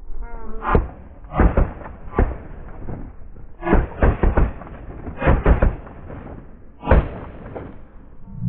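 Shotgun volley from several hunters firing at once: about ten sharp shots over seven seconds, irregularly spaced and some in quick pairs. A short honk of Canada geese comes just before the first shot.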